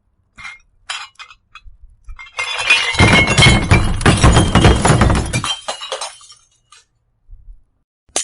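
Glass shattering: a few light clinks, then a loud crash of breaking glass with a heavy low thud, lasting about three seconds and trailing off into scattered tinkling of falling shards.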